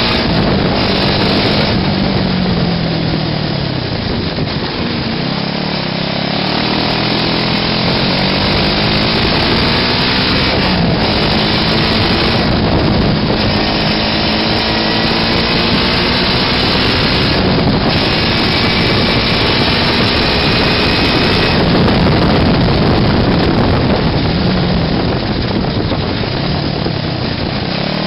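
Small air-cooled engine of a homemade buggy running under way, its pitch rising and falling with the throttle, with a raspy, buzzing note.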